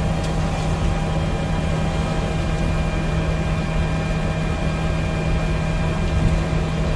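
Steady hum inside a Boeing 737 MAX 8 cockpit on the ground: a low drone with several steady higher tones over an even hiss, from the aircraft's running ventilation and systems.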